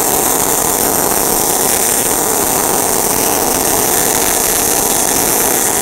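MIG welding arc running steadily on steel plate, fed by an Everlast Power i-MIG 253DPI welder in straight MIG mode, as a bead is laid along a lap joint.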